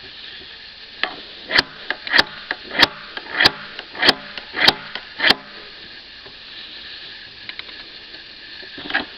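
Handheld sharpener's titanium carbide pin scraped along the edge of a chainsaw bar in quick, evenly spaced strokes, about seven in a row, to knock down a burr on the bar. The strokes stop about halfway through and start again near the end.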